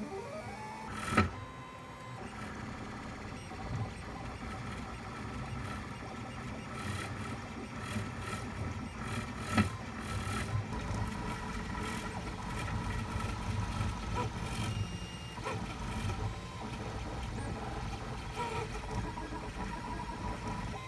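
Monoprice Maker Select V2 3D printer running a print: its stepper motors whine in steady tones that shift as the print head moves. Two sharp clicks stand out, one about a second in and one near the middle.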